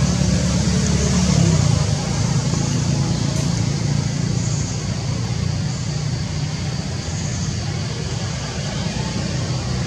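Steady low rumble under a constant hiss, a little louder in the first two seconds.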